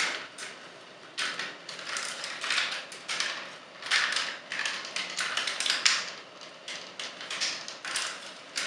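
Hard plastic parts of a Takara Legends Sixshot Transformers figure clicking, snapping and scraping as they are handled and pegged together: a run of irregular sharp clicks.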